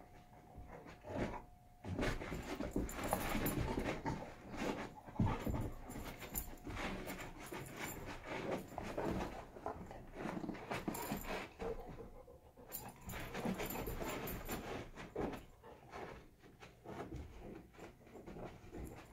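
Two Labrador retrievers play-wrestling on carpet: scuffling, mouthing and dog breathing noises in irregular bursts, with a brief lull about two-thirds of the way through.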